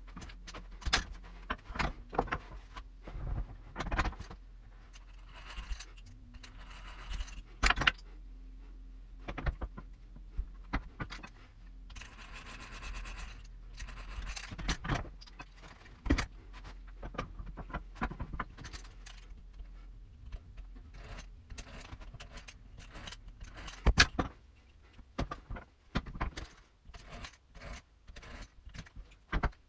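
Clicks, knocks and metallic rattling from a hand-cranked geared drill and small wooden buttons being handled and drilled at a wooden bench, with two stretches of a couple of seconds of scratchy noise.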